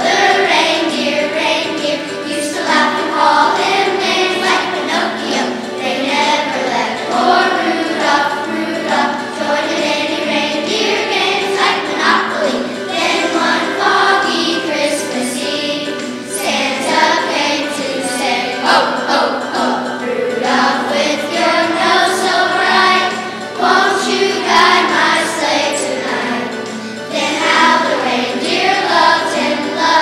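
Children's choir singing a Christmas song, the singing continuous throughout.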